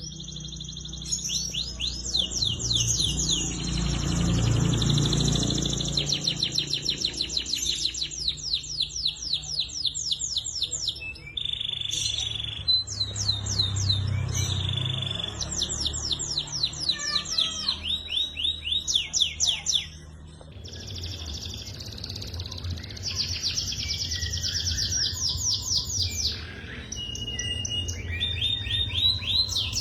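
Domestic canary singing vigorously: long, fast rolling trills of rapidly repeated chirps, switching from one roll to the next, over a low hum. The song drops away briefly about two-thirds of the way through, then resumes.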